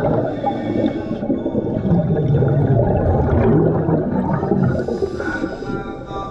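Scuba regulator exhaust bubbles heard underwater as a dense, continuous bubbling, with the level rising and falling slightly as the breaths go.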